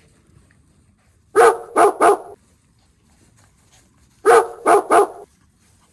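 Dog barking: two quick bursts of three barks each, the second burst about three seconds after the first.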